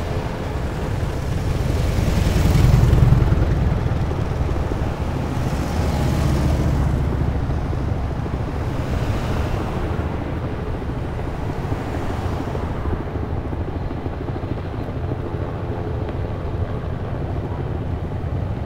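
Vehicles passing close by on a road: a pair of police motorcycles goes by about three seconds in, the loudest moment, then cars pass one after another, each a swell of engine and tyre noise over a low steady rumble that eases off in the second half.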